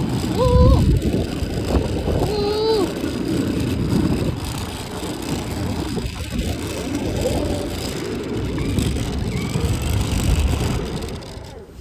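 12-volt Yamaha 700R ride-on toy ATV driving over asphalt: a steady rumble of its wheels on the pavement and its running motor, easing off as it slows near the end.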